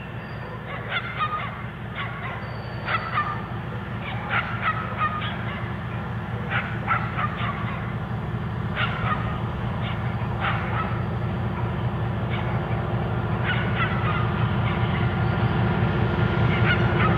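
Tulloch DRC40 diesel railcar approaching, its engine a steady low hum growing louder throughout. Bird calls ring out repeatedly over it, short calls every second or two.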